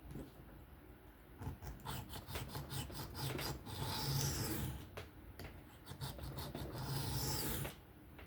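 The 3V steel blade of a Kizer Mini Towser K folding knife being drawn freehand across a sharpening stone with a rasping scrape: a run of short quick strokes, then two longer strokes about four and seven seconds in.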